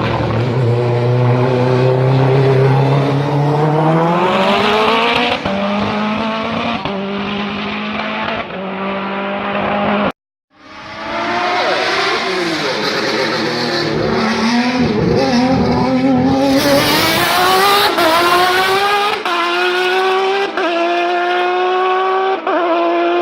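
Race car engines at full throttle, revving up and stepping down at each upshift. About ten seconds in the sound cuts out briefly, then an engine varies its revs for a few seconds before climbing again through several quick upshifts.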